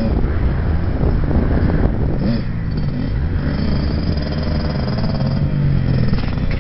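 Kawasaki KX65 two-stroke dirt bike engine running and revving up and down as the bike rides toward the camera.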